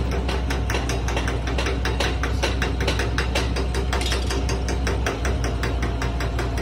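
Rapid metallic clattering, about eight knocks a second, over a steady low hum of running machinery.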